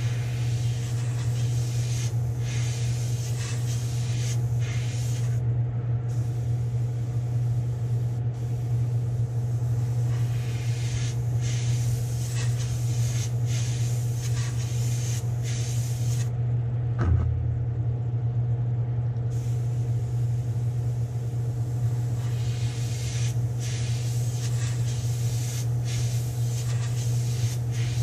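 Gravity-feed Iwata airbrush spraying in three long passes of fine hiss over a steady low motor drone, with a single soft knock about halfway through.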